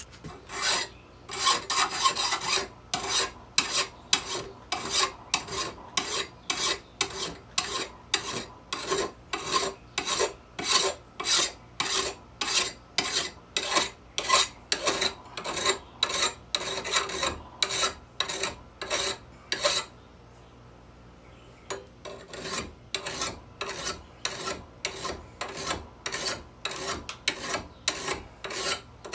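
Hand file rasping along the edge of a steel lawn mower blade held in a vise, about two strokes a second, sharpening the dull, damaged edge. The strokes stop for about two seconds some twenty seconds in, then go on.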